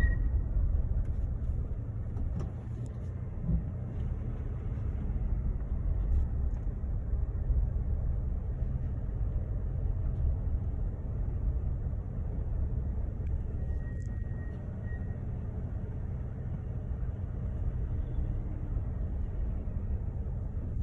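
Low, steady rumble of a Mercedes GLC on the move, with a short, faint, high-pitched brake squeal about two-thirds of the way through. The squeal is the noise the owner has had since he bought the car; Mercedes says nothing is wrong with it.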